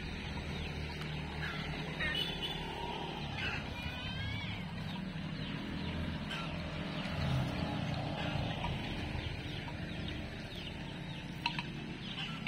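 Chickens clucking in short calls, several times in the first half, over a steady low hum.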